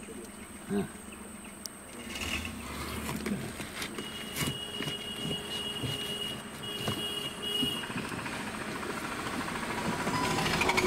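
Forest insects buzzing, with a steady high-pitched whine holding for several seconds in the middle.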